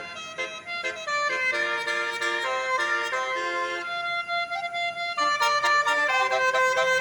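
A tourist bus's Basuri telolet horn, a multi-trumpet musical air horn, playing a tune as a run of stepped notes that change several times a second.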